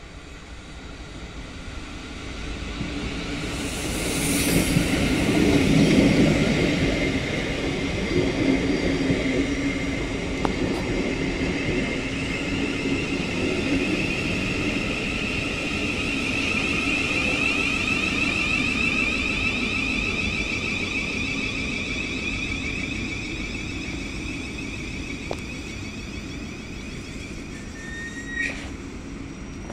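Southeastern Class 707 electric multiple unit, two units coupled, arriving at a platform. Its running noise builds to a peak about six seconds in as the front draws level. Then come wheels rolling and a steady electric whine from the traction equipment as it slows, fading gradually, with a brief squeal near the end.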